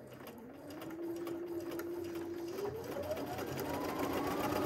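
Bernina 330 computerized sewing machine, freshly cleaned and oiled, stitching on a scrap of fabric to run off excess oil. Its motor whine starts slow and low, climbs in pitch as it speeds up around the middle, then runs steady at the higher speed.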